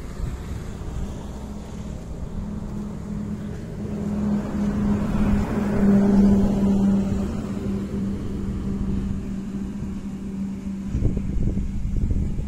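An engine running with a steady hum, growing louder about halfway through and then easing off. A few low bumps near the end.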